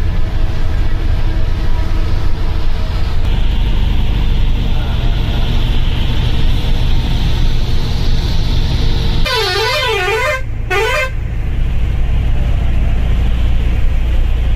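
Steady drone of a moving bus's engine and tyres on the road, heard from inside at the front. About nine and a half seconds in, a horn that wavers up and down in pitch sounds for about a second, then again briefly.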